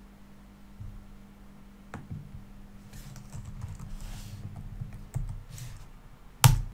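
Computer keyboard typing, a few scattered keystrokes with one louder key press near the end, over a steady low hum.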